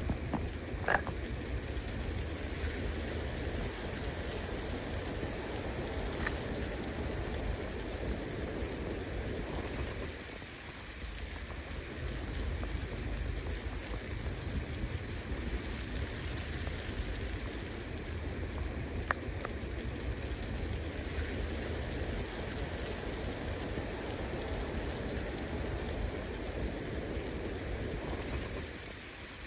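Steady hiss of wind and falling snow in a pine woods, with wind rumbling on the microphone and easing briefly a third of the way in. A few faint clicks stand out, the clearest about a second in.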